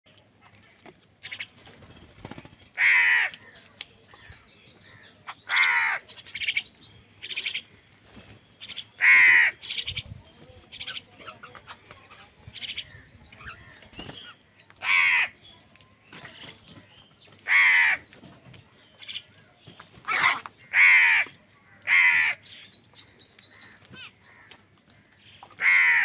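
A flock of house crows cawing while feeding. Loud, harsh caws come every few seconds, with quieter calls from other crows in between.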